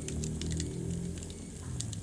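Wood fire crackling in a fireplace: many quick sharp pops and snaps over a steady low rumble.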